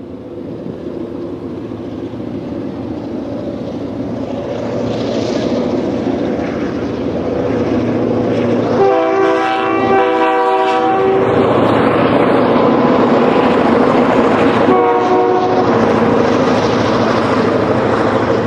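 CN freight train led by EMD diesel locomotives approaching and passing, the engine drone growing steadily louder. A long horn blast sounds about nine seconds in and a short one around fifteen seconds, and freight cars roll past near the end.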